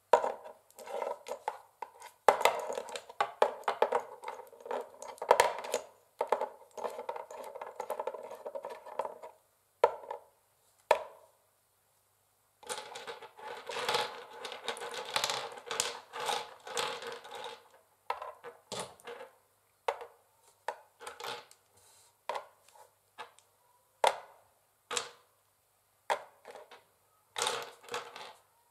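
Long fingernails tapping and scratching on a wooden chessboard: rapid flurries of clicky taps, then slower single taps with short pauses between.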